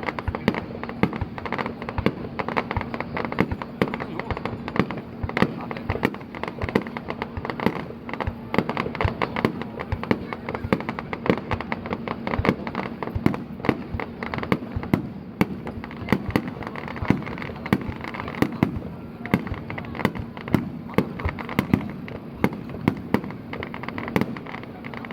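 Fireworks bursting in quick succession, a rapid string of sharp bangs and cracks, several a second, over a steady background din.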